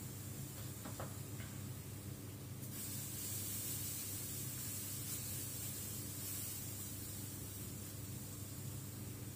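Sweet potato pancake batter sizzling in a hot cast iron frying pan: a steady hiss that grows louder about three seconds in, over a low steady hum.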